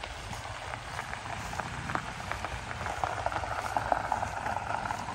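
Tyres of a slowly passing SUV crackling over a gravel road: many small sharp pops over a low steady rumble.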